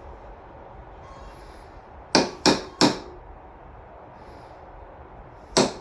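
Hammer strikes: three quick sharp blows about two seconds in, then a single blow near the end.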